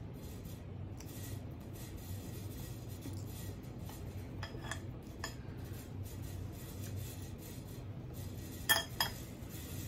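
A metal cake server cuts through cake in a glass dish, with a few light clinks about halfway through and two sharper clicks near the end, over a steady low hum.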